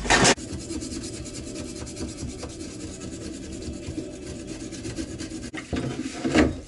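Scrubbing brush working greasy chrome bicycle parts in a solvent parts-washer tank: a steady scratchy rubbing. It is louder for a moment right at the start and again near the end.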